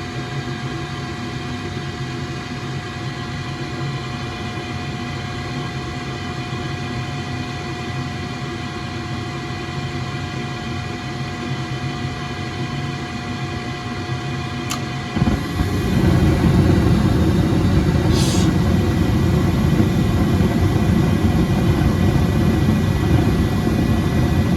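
Steady machine hum with several fixed tones; about fifteen seconds in, a sharp click, and then a much louder low rumble starts up and keeps running.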